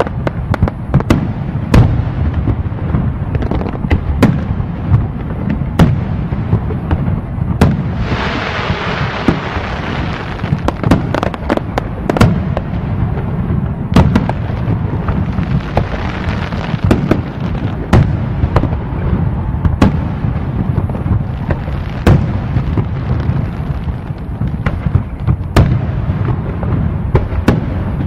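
Fireworks display: a dense, continuous run of shell bursts and bangs over a low rumble, with a crackling hiss swelling about eight seconds in and again more faintly later.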